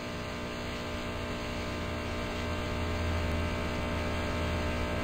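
Steady electrical hum, mains-type, with many evenly spaced overtones and a faint hiss, growing slowly a little louder.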